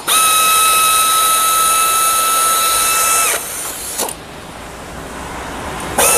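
Handheld power tool driving bolts on a centrifugal pump's back plate: a steady whine that winds up at the start, runs about three seconds and stops, with a brief blip about four seconds in and the whine starting again near the end.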